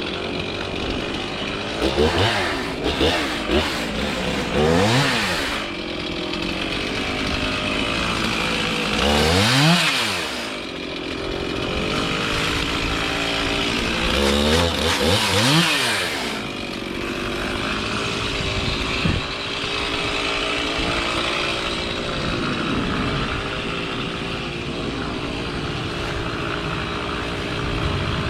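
Chainsaw cutting a magnolia tree, its revs sweeping up and down several times with stretches of steady high running in between.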